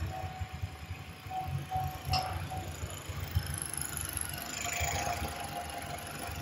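Chevy Cruze's Ecotec four-cylinder engine idling steadily, run after the oil change to move the fresh oil around the engine and fill the new filter. A single sharp click about two seconds in.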